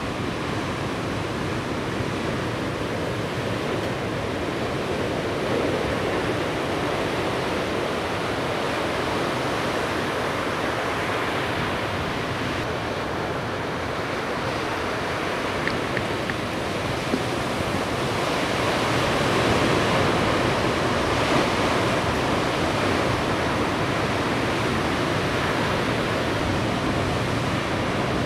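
Steady rush of breaking ocean surf, growing a little louder about two-thirds of the way through.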